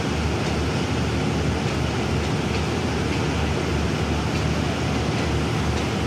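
Hitachi diesel-electric locomotive idling at a standstill: a steady low engine throb with an even hiss over it.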